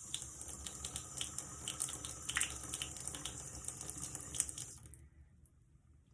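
Sink tap running, a steady stream of water splashing into the basin, which stops about five seconds in.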